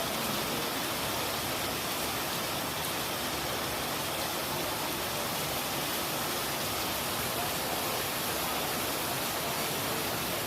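Steady heavy rain falling, an even continuous hiss with no individual drops standing out.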